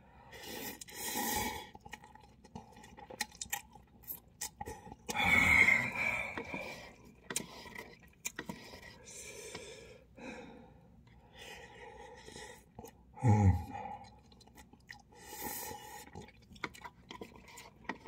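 A man slurping and chewing instant cup ramen noodles, with irregular wet slurps and lip-smacking clicks; the loudest slurp comes about a third of the way in. About two-thirds through there is a short, loud, low vocal sound that drops in pitch.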